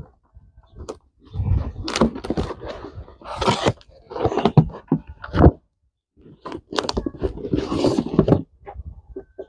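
Cardboard parcel being torn open by hand: packing tape ripping and cardboard flaps scraping and crinkling in irregular bursts, with a short pause about halfway through.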